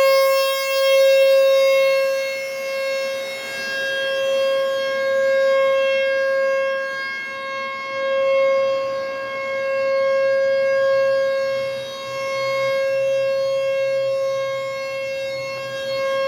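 Outdoor tornado-warning siren sounding a steady single tone, its loudness swelling and fading every few seconds. It is a storm warning, which may be for a tornado.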